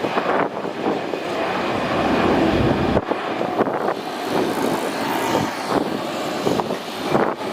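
Jet airliner engine noise mixed with strong wind buffeting the microphone, loud and steady with gusty swells.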